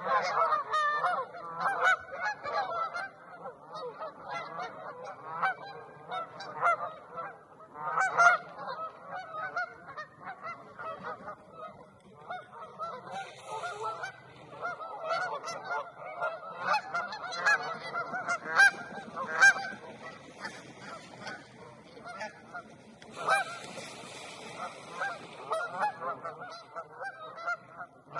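A large flock of geese honking continuously, with many calls overlapping. Twice a brief rushing hiss rises over the calls: once about halfway through, and again for a few seconds near the end.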